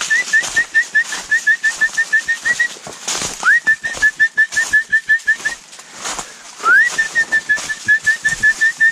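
A dog handler whistling to call in his hounds: three runs, each a rising swoop followed by a string of quick short pips, about five a second.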